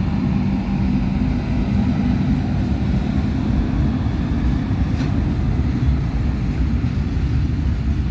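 Freight train of covered goods wagons rolling past, a steady rumble of steel wheels running on the rails. A low hum underneath fades out in the first couple of seconds.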